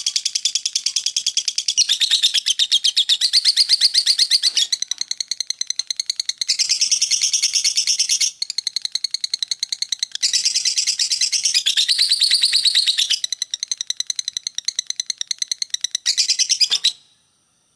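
Lovebird singing its 'ngekek' song: a long unbroken run of rapid, high, chattering notes in phrases that shift up and down in pitch, stopping suddenly near the end.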